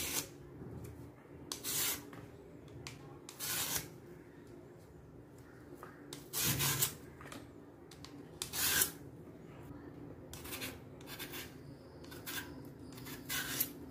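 Hand vegetable peeler scraping strips of skin off a raw green plantain, about nine short rasping strokes at irregular one-to-two-second intervals over a low steady hum.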